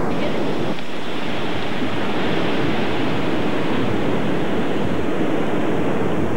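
Ocean surf breaking and washing over rocks: a steady rushing wash of water.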